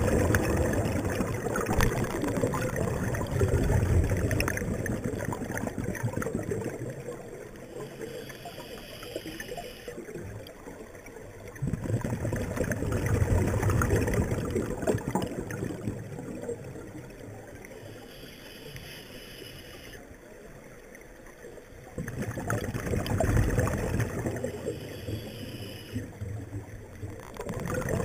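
Scuba diver's regulator breathing heard underwater: three long, bubbling rumbles of exhaled air about ten seconds apart, with a short, faint hiss of inhalation in the quieter gaps between them.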